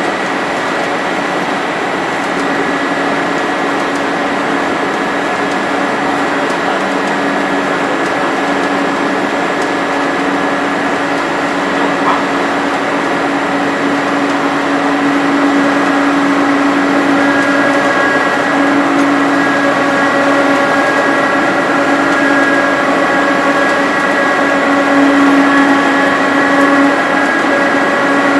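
Ring rolling machine running as it rolls a red-hot steel ring: a steady mechanical hum with a higher whine over it, growing a little louder about halfway through.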